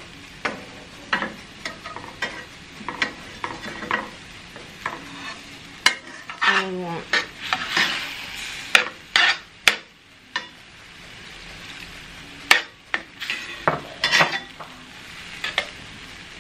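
Slotted metal spatula scraping and knocking against a stainless steel frying pan as ground beef in taco-seasoning sauce is stirred, in irregular strokes, over the sizzle of the meat cooking.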